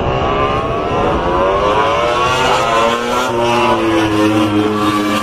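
A vehicle engine revving: its pitch drops over the first couple of seconds, climbs again around the middle, then holds fairly steady.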